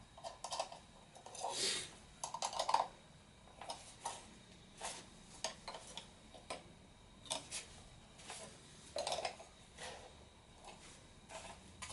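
Irregular light clicks, taps and short plastic rattles of a CX-20 quadcopter's propellers and prop nuts being handled and fitted onto the motors by hand.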